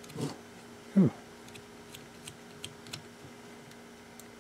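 Light clicks and taps of plastic blender parts and wire clips being handled, with one louder knock about a second in, over a faint steady hum.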